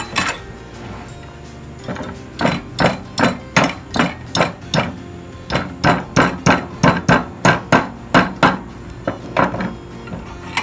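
A hammer striking repeatedly in a quick, even run, two to three blows a second, with a brief pause midway.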